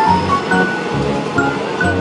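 Background music with a melody of short held notes, over a steady rushing noise from a departing Taiwan Railway EMU600 electric multiple unit.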